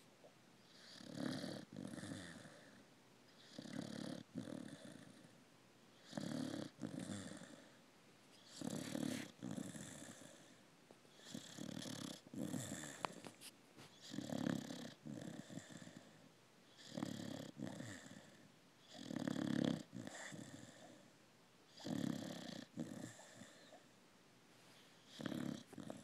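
Steady, rhythmic snoring: about ten snoring breaths, roughly one every two and a half seconds.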